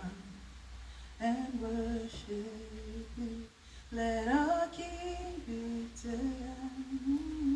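A single voice singing or humming a slow praise melody in long held notes, with a new phrase starting about a second in and another about four seconds in.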